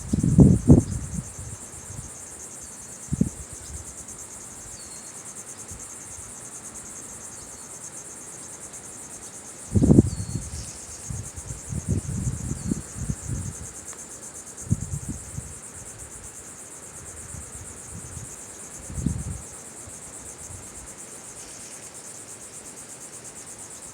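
Steady high-pitched chorus of insects such as crickets, running without a break. Several short low rumbles come and go, the loudest at the start and about ten seconds in, and a few faint short chirps sound over the chorus.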